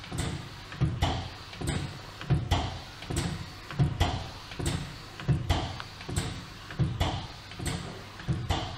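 Two-colour pad printing machine running its automatic cycle: its pneumatic cylinders knock and release short hisses of air in a steady rhythm, about one stroke every three quarters of a second.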